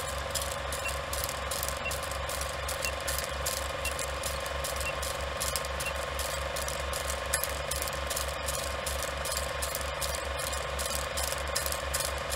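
Film projector running: a rapid, even mechanical clatter over a steady hum, with a faint pip about once a second in the first half.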